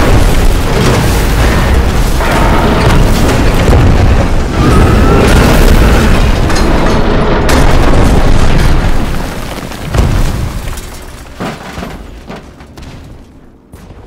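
Heavy bomb explosions in close succession, a continuous deep rumble broken by several sharp fresh blasts. After a last blast about ten seconds in, the rumble dies away.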